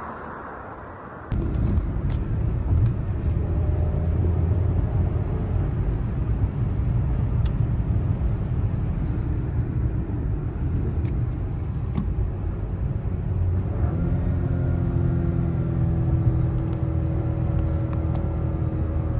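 Citroën C4 X with the 1.2 PureTech three-cylinder turbo petrol engine and stock exhaust, running with a steady low rumble that cuts in about a second in. About two-thirds of the way through, a steady engine tone joins the rumble, holding one pitch rather than rising.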